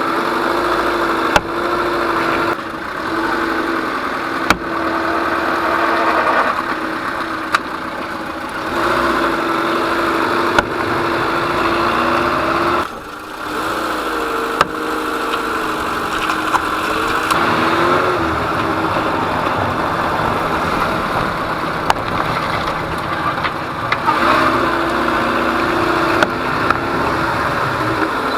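Peugeot 207 running with steady engine and road drone, and a sharp knock every few seconds from the front wheel hub: the hub has play even with a new SKF hub bearing, its cause unknown. The drone's pitch rises and falls a few times about halfway through.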